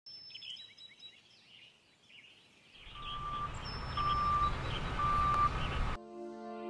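Birds chirping, then about three seconds in a vehicle's low engine rumble comes in with a reversing alarm beeping three times, about once a second. Synthesizer music cuts in near the end.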